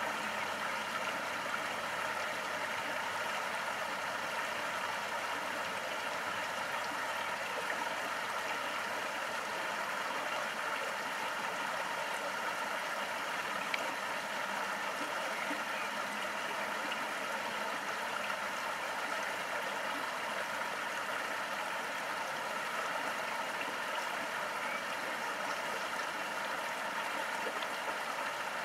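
Steady, even rushing of water, unchanging throughout.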